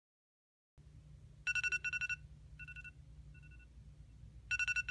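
Phone alarm ringing: an electronic ringing tone of quick pulsing beeps at two pitches, in groups that repeat about every three seconds, starting about a second in.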